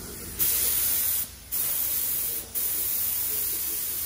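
Gravity-feed paint spray gun spraying primer in three trigger pulls, each a steady air hiss with short breaks between them, beginning about half a second in.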